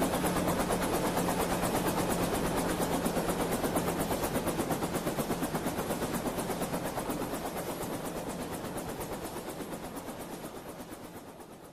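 Multirotor drone's motors and propellers running in flight, a steady buzz with a fast, even pulsing, fading out over the last few seconds.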